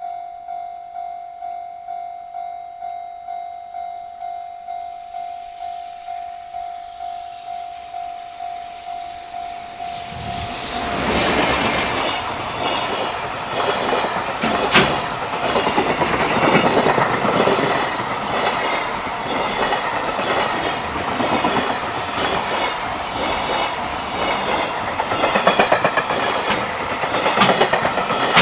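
A level crossing warning bell rings steadily at one pitch, about one and a half strikes a second. About ten seconds in, a JR Freight freight train arrives and passes over the crossing, its wheels clattering over the rail joints and drowning out the bell, with one sharp crack a few seconds later.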